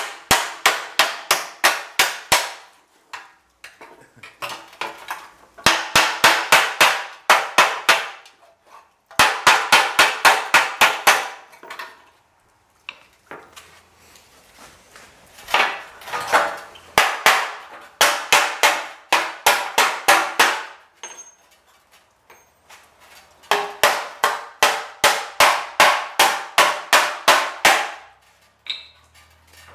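Hammer rapidly striking a sheet-metal body panel, a car's valance, to beat out dents, about five ringing blows a second. The blows come in bursts of a few seconds with short pauses between them, some passages lighter.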